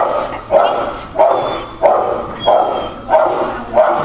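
A year-old German shepherd barking in a steady rhythm, about seven sharp barks evenly spaced roughly two-thirds of a second apart.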